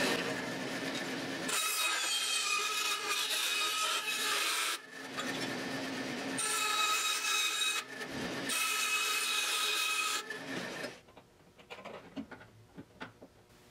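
Metal-cutting band saw slicing through the flanges of a small bent sheet-steel piece, in three cuts of one to three seconds each, with a steady high squeal over the rasping. It is followed near the end by light clicks of the metal piece being handled.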